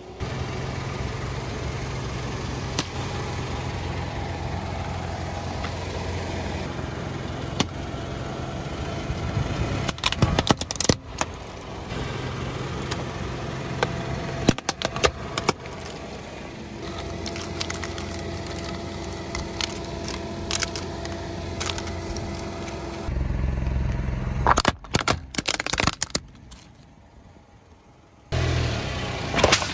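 A car engine running steadily as the car's tyre rolls over plastic toys and a camera tripod, crushing them. There are three spells of sharp cracking and snapping: about ten seconds in, around the middle, and again near the end.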